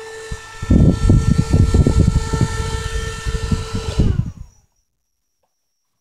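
Homemade electric fan, a PC cooler fan driven by a 12 V printer motor, running with a steady whine and a rough, uneven low rumble. About four seconds in, the power is cut, and the whine drops in pitch and dies away.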